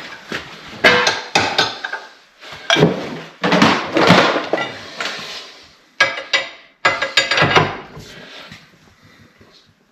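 Metal tools clanking and knocking against a steel bench vise and workbench: a run of sharp metallic clatters and knocks with some ringing, dying away near the end.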